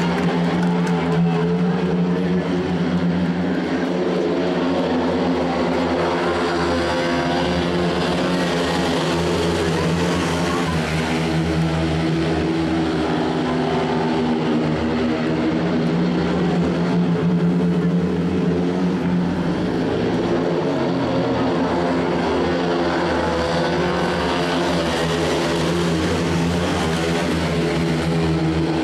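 Several speedway motorcycles running together, their 500 cc single-cylinder methanol engines making a steady, continuous drone that wavers a little in pitch.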